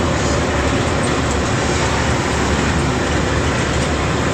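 Steady cab noise of a truck cruising on a highway: a low engine drone under a constant rush of tyre and wind noise, heard from inside the cab.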